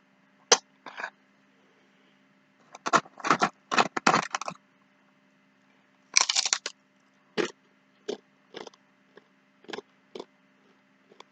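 A man chewing and biting into crunchy food close to the microphone: short crisp crunches in irregular clusters, with pauses between bites.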